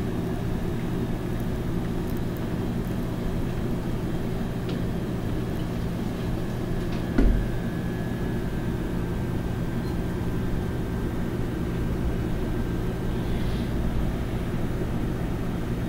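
Steady low mechanical hum, with one brief low thump about seven seconds in.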